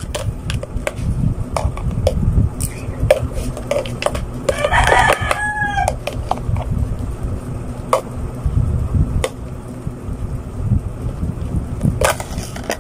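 A rooster crowing once, about five seconds in, over scattered light clicks and taps of a plastic cup being handled.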